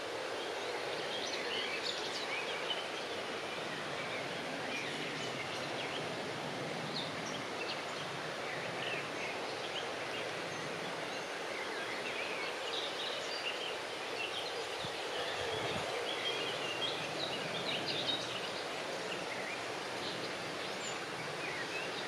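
Outdoor ambience: a steady background hiss with many short, high bird chirps scattered throughout.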